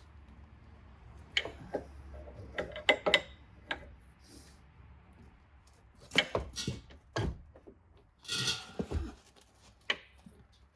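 Scattered sharp metallic clicks and knocks of hand tools working a log splitter's hydraulic pipe loose from a fitting clamped in a vise, with a short scraping rub about eight seconds in.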